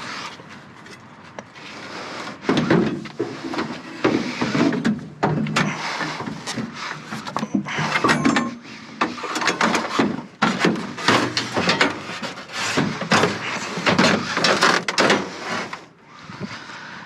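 Objects being handled and moved: a busy run of knocks, clatter and scraping that starts about two and a half seconds in and eases off near the end.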